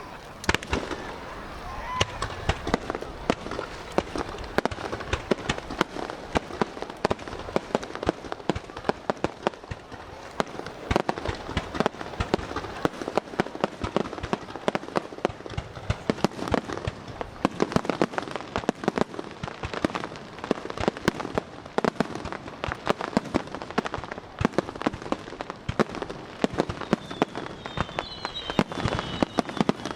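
Fireworks display: a continuous barrage of bangs and crackling, several reports a second, with a few gliding whistles near the end.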